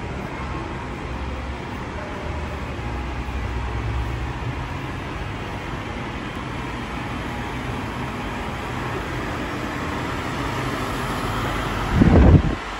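Steady background rumble and hiss of a building entrance. Near the end a brief, loud, low blast of air buffets the microphone as it passes through the doorway beneath an air curtain.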